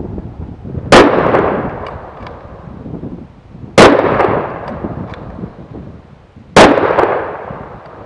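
Three shots from a .375 H&H Magnum Mauser bolt-action rifle, spaced about three seconds apart, each very loud with a long rolling echo that dies away over a second or two.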